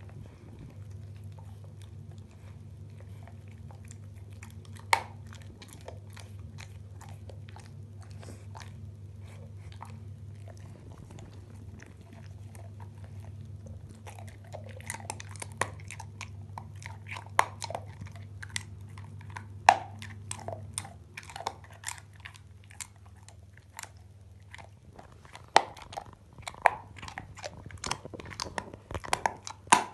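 Staffordshire bull terrier chewing a knotted chew bone: irregular crunches and sharp cracks, sparse at first with one loud crack about five seconds in, then coming thick and fast from about halfway.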